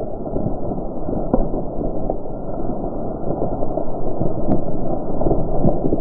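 Cut knobcone pine slowly falling, hung up in neighbouring trees: a dense crackling of branches and wood. Sharp snaps come about a second and a half in, around two seconds, and, louder, about four and a half seconds in.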